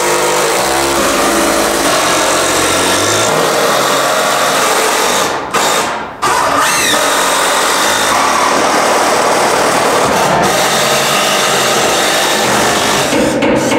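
Background music with a steady beat, mixed with the whirr of a cordless drill driver working fasteners in wooden floor joists.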